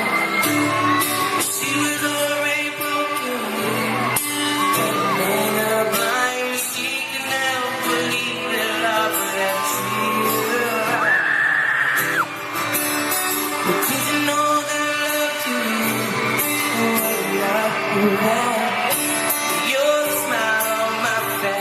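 Pop song with singing played over a stadium concert's sound system, recorded from within the crowd.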